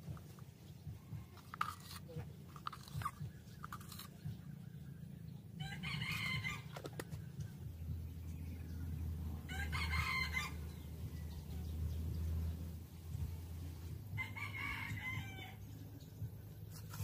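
Rooster crowing three times, each crow about a second long and four seconds or so apart, over a low steady hum.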